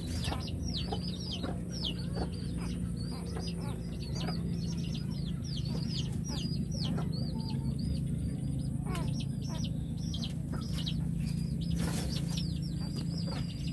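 Birds chirping rapidly: many short, high peeps sliding down in pitch, several a second, over a low steady hum.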